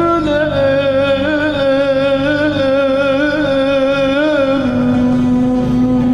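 Male vocalist singing a long, ornamented, wavering phrase over instrumental accompaniment in Turkish-style music. About three-quarters of the way through, the wavering line gives way to a steady held note.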